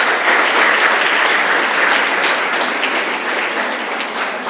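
A school assembly audience applauding, many hands clapping; the applause slowly dies down near the end.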